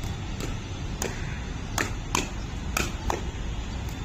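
Pickleball paddles striking a plastic ball in a fast volley exchange: about five sharp pops in quick succession, some under half a second apart, over a steady low rumble.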